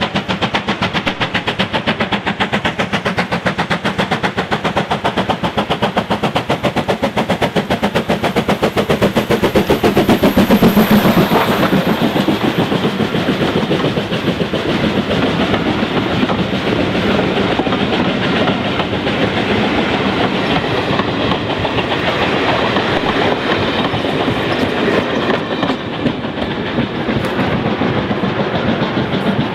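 Steam locomotive 6046 working hard as it approaches, its exhaust beating in a rapid, even rhythm, loudest as it passes about ten seconds in. Its coaches then roll by, wheels clicking over the rail joints.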